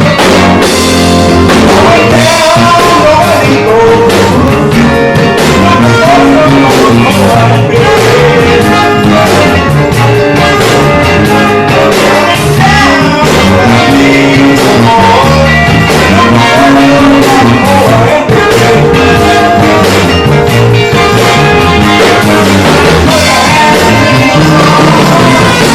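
Loud rock-style band music with a steady drum beat, bass and pitched instrument lines, and some singing.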